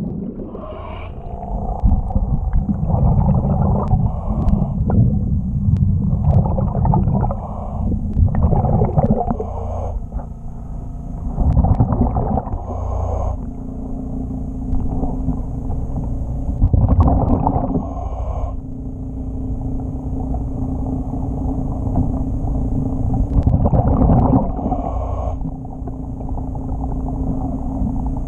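Underwater sound of a diver's breathing regulator: bursts of exhaled bubbles rushing out every few seconds, over a steady low hum.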